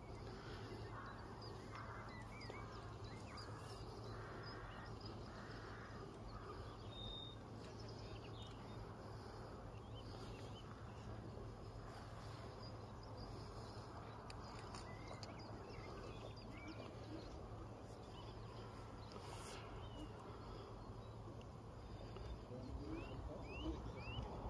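Birds calling: a crow caws about five times in the first six seconds while small birds chirp throughout. Underneath is a faint, steady low rumble.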